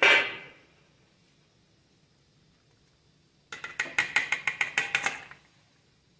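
A single ringing metal clink, then about three seconds later a quick run of about a dozen metallic taps and clinks over nearly two seconds. The taps are a steel strainer of raw chicken pieces being tipped and knocked against a steel cooking pot.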